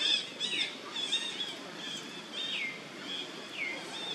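Birds calling over and over, about two short high notes a second, several of them sliding down in pitch.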